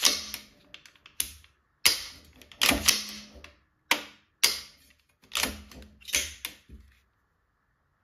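Function check of a B&T APC223 Pro rifle: the action is cycled with the charging handle and the trigger dry-fired, giving about a dozen sharp metallic clacks and clicks, some in quick pairs, stopping about a second before the end.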